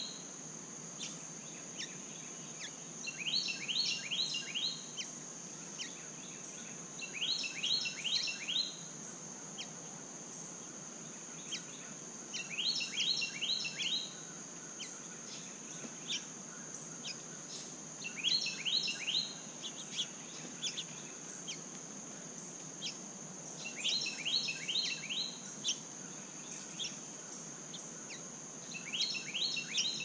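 A songbird repeats a short song phrase of quick, repeated notes about every five seconds, six times, over a steady high insect drone.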